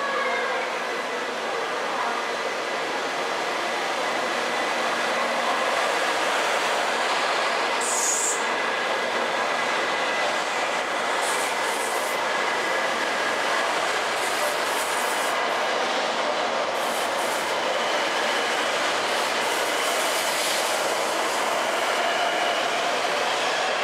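Doctor Yellow, a 923 series Shinkansen inspection train, pulling out and rolling along the platform: steady running and wheel noise with faint whining tones from its drive, a brief high squeal about eight seconds in, and a faint rising whine near the end as it gathers speed.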